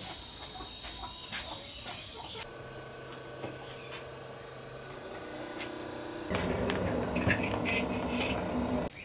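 Insects trill steadily on one high note for the first couple of seconds. After a cut, a wok on a wood-fired brick stove gives a louder rushing noise with a few clicks and knocks as it is handled over the fire, starting about six seconds in and stopping shortly before the end.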